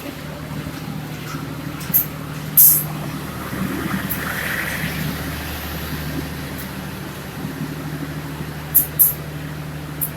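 A train running with a steady low hum, with a few short, sharp hisses about two seconds in and twice near the end.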